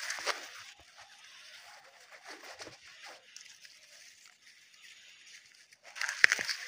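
Maize leaves and stalks rustling as a hand brushes through them, with a louder crackle and snap about six seconds in as an ear of corn is gripped on its stalk.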